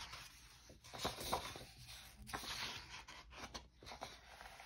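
Paper pages of a hardcover picture book being turned and smoothed flat by hand: soft paper rustling and sliding, with a few light clicks.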